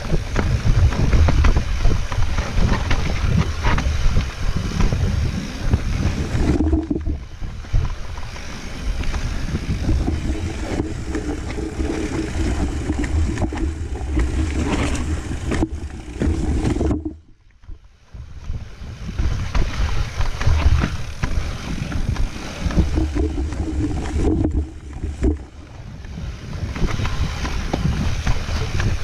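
Wind buffeting the rider's camera microphone, mixed with the rumble and rattle of a mountain bike rolling fast over a rocky forest trail. The noise drops almost to nothing for about a second a little past halfway.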